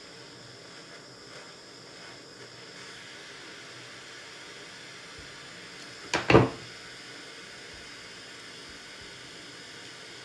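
Handheld gas torch hissing steadily while it heats a 3D-printed plastic part, with a short double knock about six seconds in.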